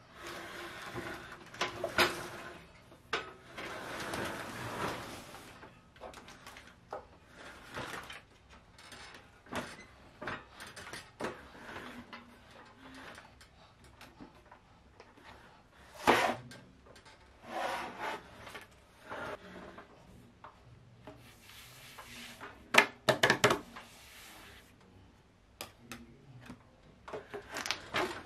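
Hands rubbing and smoothing black vinyl contact paper over a wooden desktop and its edges: irregular swishes and scrapes of the film, with a few sharp handling knocks, the loudest a little past the middle and again later on.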